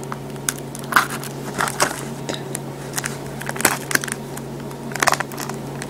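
Plastic shrink wrap crinkling and crackling in short irregular bursts as it is worked off a small trading-card pack, over a steady low hum.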